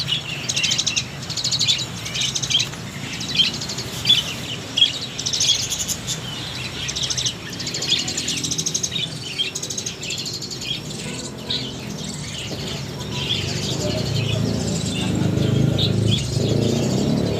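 A cage of young Asian pied starlings (jalak suren) chirping and chattering, with many short calls and quick trills overlapping. The calls thin out past the middle, while a low rumble builds up beneath them toward the end.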